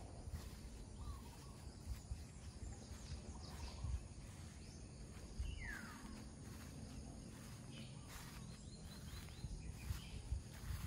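Faint outdoor ambience of birds calling, short scattered chirps with one clear falling whistle about six seconds in, over a low, uneven rumble.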